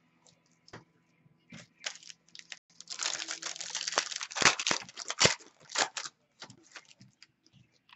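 Foil trading-card pack wrapper crinkling and tearing as it is opened by hand. Light clicks of card handling come first, then the crinkling is dense and loud from about three to six seconds in, with a few sharp snaps.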